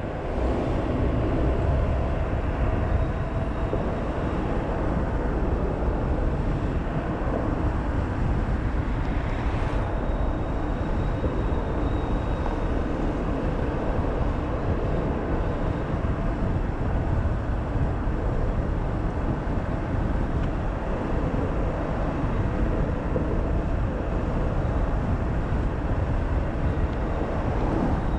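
Steady road noise from a vehicle moving along a gravel street: tyre rumble with heavy low wind buffeting on the camera's microphone.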